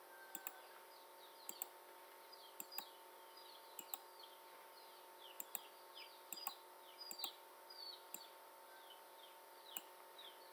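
Faint computer mouse clicks, about a dozen, spread irregularly, over small birds chirping with many quick falling chirps and a faint steady hum.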